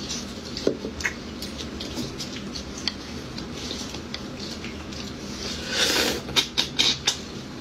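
Eating roasted beef bone marrow: a few small clicks of chopsticks working inside the bone, then about six seconds in a slurp as the marrow is sucked out of the bone, followed by several quick wet mouth smacks.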